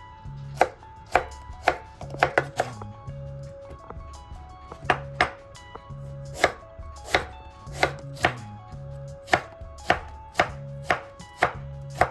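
Chef's knife cutting courgette and aubergine into sticks, the blade knocking sharply on a bamboo cutting board in irregular runs of strokes.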